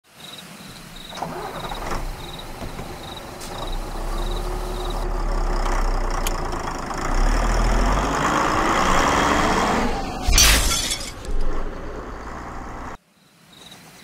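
Sound effects of a vehicle driving down a road, with engine and road noise building, then a crash with shattering glass about ten seconds in: a collision with a moose. The sound cuts off abruptly shortly before the end.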